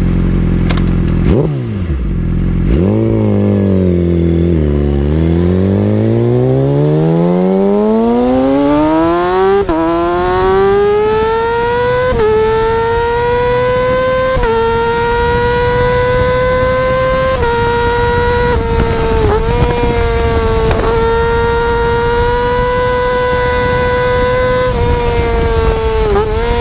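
Yamaha R6 inline-four engine accelerating hard. The revs climb steadily, then the bike goes up through the gears on the quickshifter, each shift a quick small drop in pitch without the throttle closing. After that it holds a high, steady note with a few brief dips.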